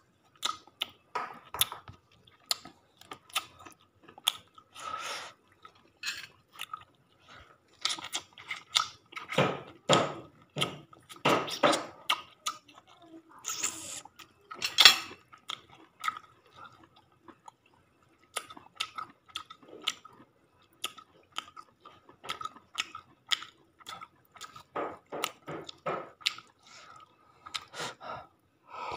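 Close-up chewing and crunching of grilled chicken eaten by hand, in a run of irregular wet clicks and crunches, loudest about ten and fifteen seconds in.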